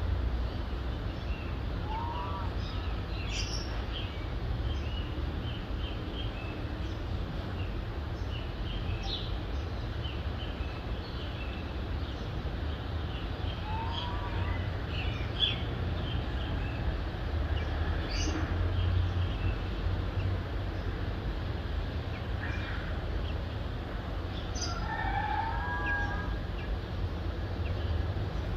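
Dawn birdsong: scattered short high chirps and a few short up-and-down calls, over a steady low rumble of distant city traffic.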